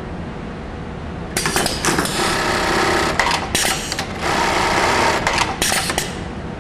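HAMS MHA-JBL100-J automatic belt-loop sewing machine starts about a second and a half in and sews a belt loop onto denim in several fast bursts with short pauses between them. Sharp clicks come at the starts and ends of the bursts, and the machine stops about six seconds in.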